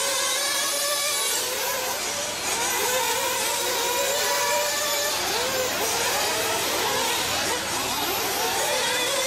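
Several 1/8-scale nitro buggy engines, small two-stroke glow engines, buzzing at high revs. Their pitches overlap and keep rising and falling as the cars accelerate and back off around the track.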